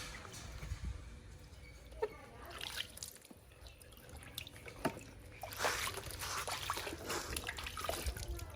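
Bath water trickling, dripping and splashing in irregular spells as a baby monkey is bathed, heavier from about halfway through.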